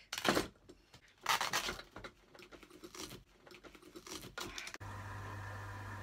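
Scattered rustling and scraping noises, loudest just after the start and again about a second in. Near the end a water pump's steady hum starts suddenly, a low drone with a fainter, higher whine over it.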